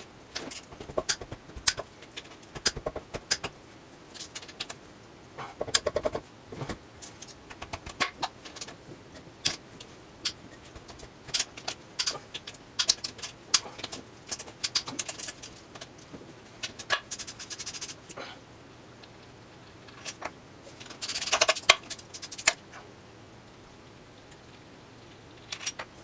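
Irregular clicks and clinks of hand tools and small transmission parts being handled during teardown of a GM automatic transmission, with a brief denser rattle about three quarters of the way through.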